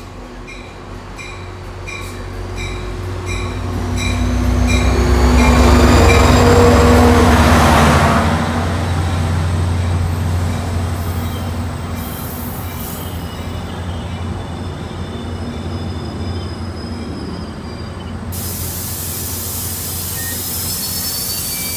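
Diesel passenger locomotive arriving at a station platform with its bell ringing about twice a second, its engine loudest as it passes about six seconds in. The coaches then roll by slowly with high wheel and brake squeals as the train brakes to a stop, and a loud hiss of air comes near the end.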